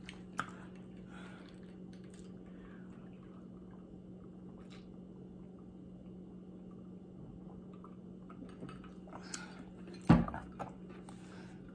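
Quiet sipping from a glass of water over a faint steady hum, then a sharp knock about ten seconds in as the glass is set down.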